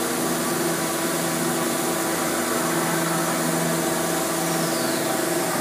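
Fortune Vturn 26 II CNC turning center running with a steady mechanical hum, several steady tones over a constant whir.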